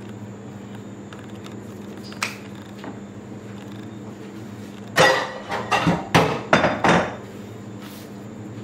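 A quick run of about six sharp knocks and clatters on a work table, about five seconds in, as a metal round cutter is pressed into and tapped out of shortcake dough.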